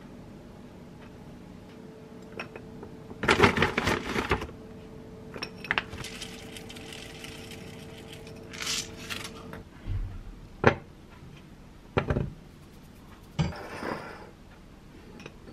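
A spoon scraping jam out of a glass jar and clinking against a glass bowl, then sunflower seeds shaken from a jar pattering into a glass dessert bowl. Near the end come a few knocks as dishes are set down on the counter.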